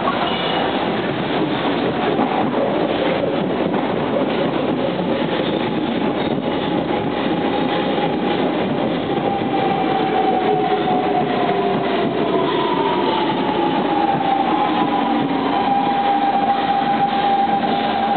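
SMRT electric metro train pulling into an elevated station: steady rumble of wheels on the rails, overlaid with whining tones that fall in pitch as the train slows.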